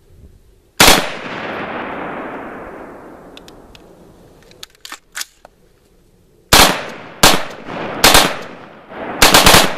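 AR-15 rifle in .223/5.56 being bump fired. A single shot rings out with a long echo, then after a pause come shots in short uneven strings, ending in a fast burst of about four near the end.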